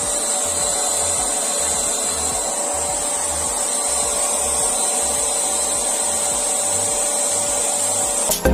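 Handheld electric paint spray gun running steadily while spraying gold paint, a constant motor hum with a high hiss of spray. It cuts off suddenly near the end.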